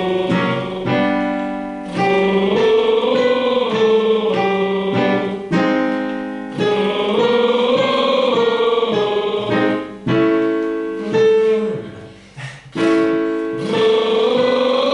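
Solo pop singing with vibrato on long held notes, over guitar accompaniment, with a short break about twelve seconds in.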